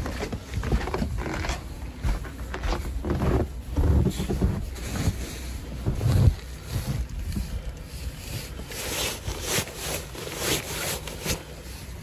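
Blizzard wind buffeting the microphone in low, rumbling gusts, strongest a little after six seconds in. From about eight seconds in the gusts ease and short, irregular scuffing steps come through, roughly two a second.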